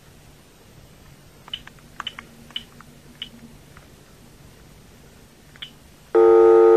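Cordless telephone handset: several short clicks as it is handled and its keys pressed, then about six seconds in a loud steady dial tone as the line opens.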